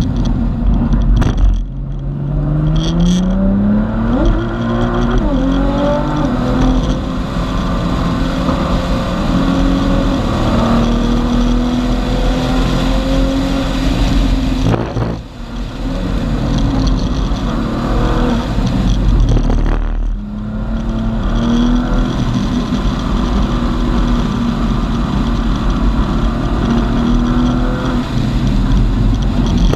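Tuned 2014 Nissan GT-R's twin-turbo V6 on E85, heard from inside the cabin, pulling hard on track: the engine note climbs in pitch repeatedly as the car accelerates, with a few brief breaks in the sound.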